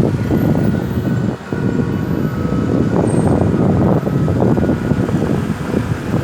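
Road vehicle noise: a loud, steady low rumble with a brief dip about a second and a half in.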